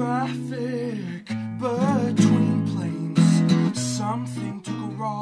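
Acoustic guitar played lap-style, laid flat and both strummed and fretted from above, with steady low ringing notes, while a male voice sings held notes with vibrato over it.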